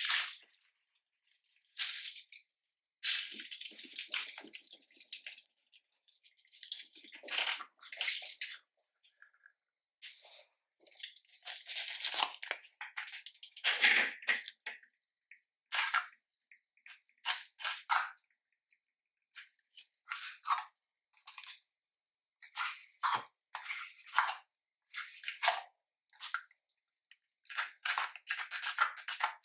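Mixed store-bought slime being squished and worked by hand: irregular bursts of wet squishing and crackly popping, with short silent gaps between.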